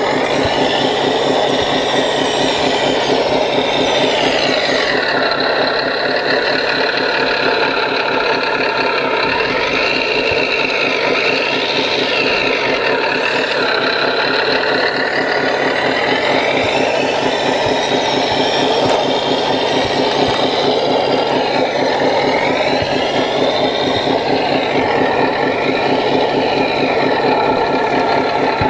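An electronic sound module in an RC scale construction model plays a steady diesel engine idle with an even knocking pulse. Over it, an electric motor whine rises and falls several times as the 1/14-scale CAT 963D track loader drives and raises its bucket.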